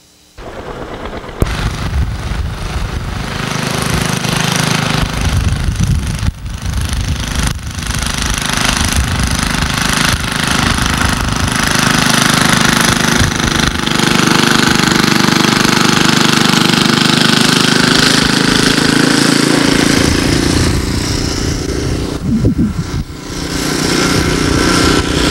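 A small engine running steadily, with a rough, noisy sound on top. It starts about half a second in and grows louder over the first few seconds.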